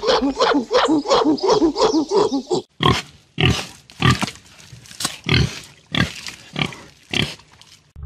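Gorilla giving a fast series of short rising-and-falling hoots, which stop about two and a half seconds in. Then a pig grunts, a string of short, coarse grunts, about nine, spaced at roughly two a second.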